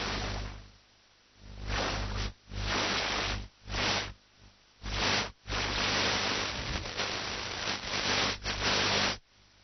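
Loud, even static-like hiss that cuts in and out abruptly several times, with short near-silent gaps between the stretches.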